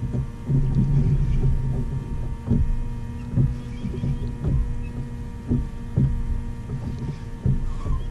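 Low rumble of wind and water noise on a kayak-mounted action camera, with soft thumps about once a second over a steady faint hum.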